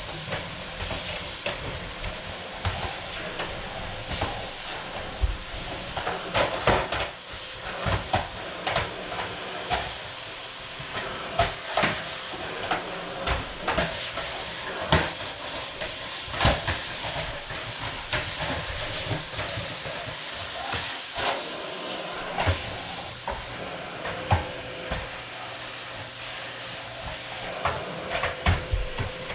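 Household items knocked and set down, with scattered clatter over a steady hiss.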